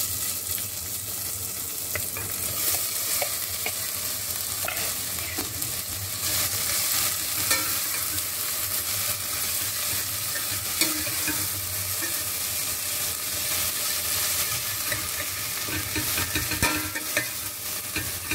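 Diced onion, potato and carrot sizzling in hot oil with whole spices in a stainless steel pan, stirred with a steel ladle that scrapes and clicks against the pan now and then.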